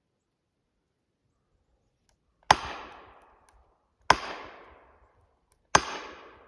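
Three hard hammer blows on steel felling wedges driven into the cut of a spruce, about a second and a half apart, each with a sharp metallic ring that dies away. The wedges are lifting a hard-leaning tree back toward vertical.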